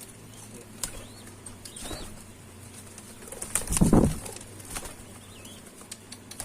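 Domestic pigeons in a loft: a loud burst of wing flapping a little under four seconds in, amid a few lighter flutters and clicks, with faint high chirps from small birds.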